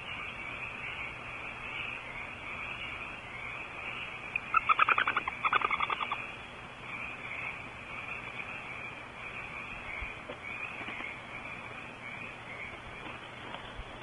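Barn owl twittering: two quick runs of rapid chittering notes about four and a half to six seconds in, over a steady hiss.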